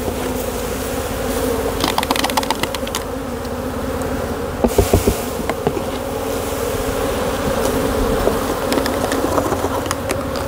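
A tub full of honey bees shaken off a brood frame, buzzing in a steady, dense hum. A few sharp clicks and knocks come about two and five seconds in.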